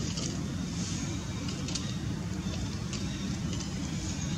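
Steady low outdoor rumble with a faint hiss, and a few brief, faint dry rustles.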